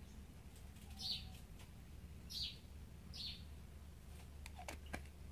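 Faint short high bird chirps, three of them about a second apart, over a low steady hum; a couple of light clicks near the end.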